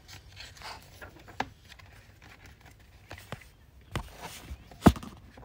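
Pages of a paperback book being turned and handled: soft paper rustling and several sharp taps, the loudest near the end.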